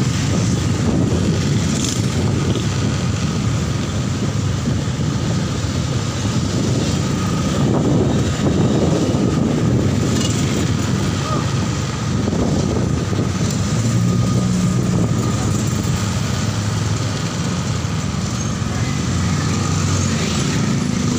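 Road traffic in a slow, congested queue of cars and motorcycles, heard from among it: engines running with a steady low drone and the noise of passing vehicles.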